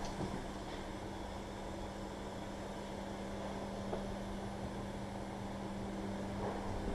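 Steady background hum with a constant low tone over an even hiss, with no distinct events.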